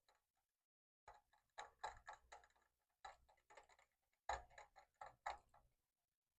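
Ratchet wrench clicking in short quick runs, two bursts of several seconds each, as spark plugs are being worked in.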